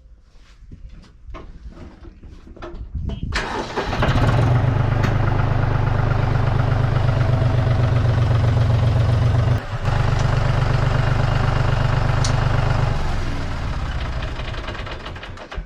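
An engine starts about three seconds in and runs loud and steady with a low, fast pulsing, dipping briefly partway through, then winds down near the end.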